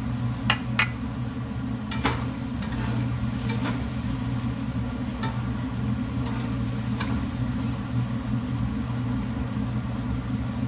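Tomato masala sizzling in a nonstick frying pan after a splash of water, with a metal spatula knocking and scraping against the pan a few times in the first seven seconds. A steady low hum runs underneath.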